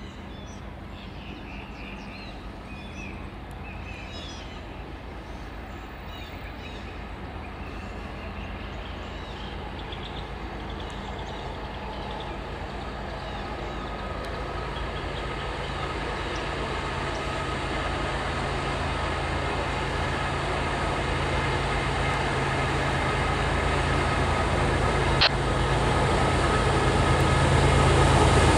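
Diesel locomotives leading a freight train approach, their engines' low, steady drone growing steadily louder as the train nears. A single sharp click comes near the end.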